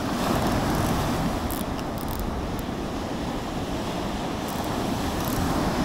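Waves of a rough sea (about a metre high) breaking on the shore: a steady rushing wash, with a few faint ticks around two seconds in and near the end.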